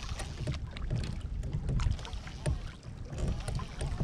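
Water lapping and slapping against a kayak's hull, with a low wind rumble on the microphone and scattered small knocks.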